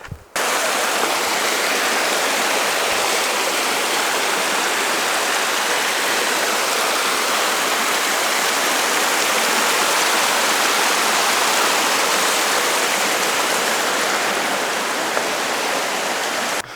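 Rushing water of a mountain stream or cascade: a loud, steady hiss with no rhythm. It cuts in suddenly just after the start and cuts off suddenly near the end.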